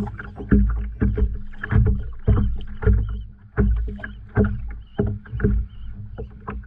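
Small fishing boat under way on the water: rhythmic splashing and knocking strokes about once or twice a second over a steady low hum.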